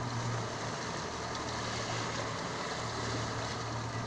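Boat engine running steadily, a low hum that dips briefly about halfway, under a hiss of wind and water.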